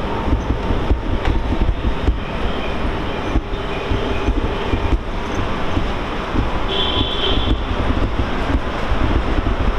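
E231-series electric train running slowly along the platform, with a steady rumble of wheels and running gear. Brief high-pitched tones come through twice, most plainly about two-thirds of the way in.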